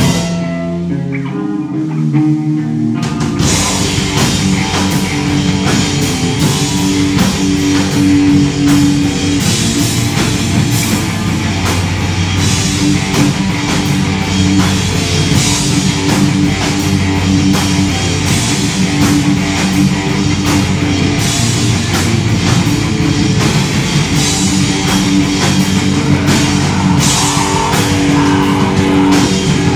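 Live metal band with electric guitars, bass guitar and drum kit. It opens with about three seconds of guitars and bass alone, then the drums and full band come in together and play on.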